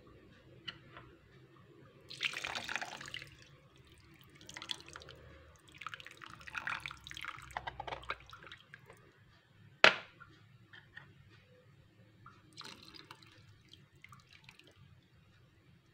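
Water poured in several short bursts from a small glass bowl into a pan of rice, splashing into the liquid already there. A single sharp knock about ten seconds in.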